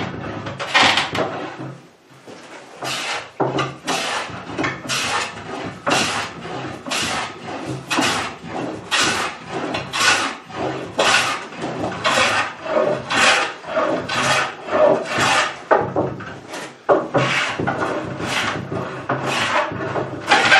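Restored hand plane shaving a board in repeated light passes, each stroke a rasping swish of the blade cutting wood, about one a second.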